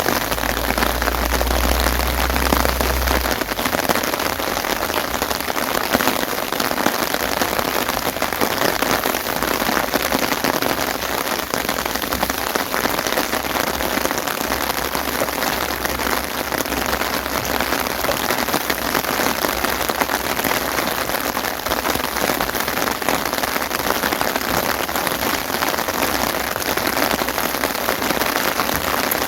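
Steady rain falling, an even patter of raindrops with no pauses. A low rumble sounds underneath for the first three seconds.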